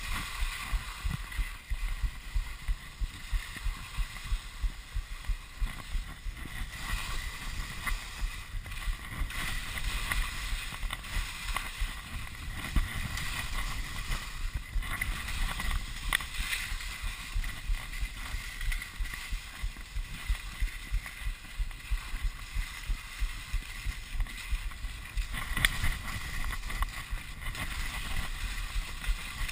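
Telemark skis scraping over snow in a run of quick turns, with low rumbling wind on the microphone.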